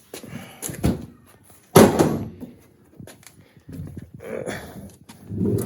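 A loud thump about two seconds in, with smaller knocks and clunks around it: car interior parts and trim being handled and pulled out.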